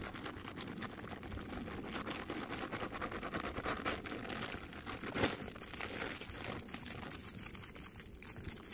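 Thin plastic bag crinkling and rustling as hands rummage inside it, with one sharper crackle about five seconds in.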